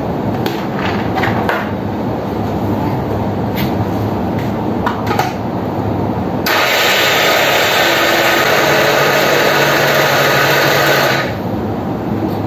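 Countertop blender with a stainless-steel jar running at one steady speed for about four and a half seconds. It starts suddenly about six and a half seconds in and cuts off quickly. Before it, a few light clicks sound over a steady low hum.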